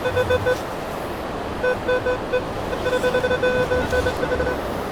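Metal detector sounding its target tone as it sweeps over a buried target in a dug hole: rapid stuttering runs of short mid-pitched beeps in three spells. Steady surf and wind hiss lies underneath.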